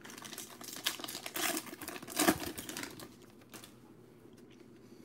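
Foil trading-card pack wrapper crinkling as it is torn open and the cards are pulled out. The crinkling is loudest about two seconds in and dies away after about three seconds, leaving a few faint clicks of cards being handled.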